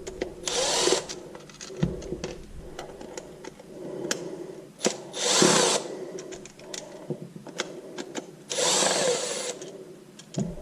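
Power drill running in short bursts, about three main runs, driving out the screws of a cordless drill's housing, with small clicks and knocks of parts being handled between the runs.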